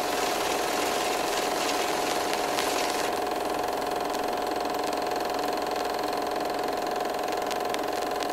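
A steady mechanical hum with a constant mid-pitched tone over a low hiss, holding level throughout.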